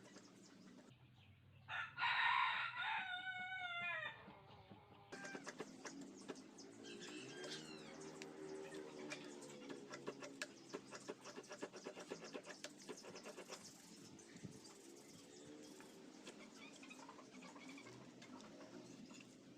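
A rooster crows once, a call of about two seconds starting about two seconds in, falling in pitch at its end. Faint clicks and taps follow.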